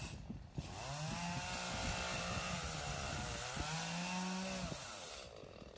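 Chainsaw running and cutting through the branches of a downed tree, its engine pitch dipping and picking back up about three seconds in, then cutting off near the end.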